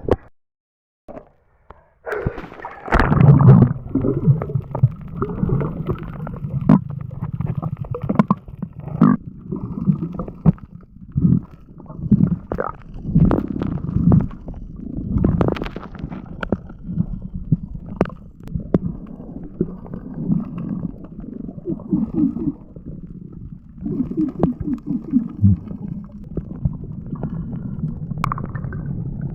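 Muffled underwater gurgling and bubbling with scattered clicks and knocks, as picked up by a camera under water, starting a few seconds in after a brief silence.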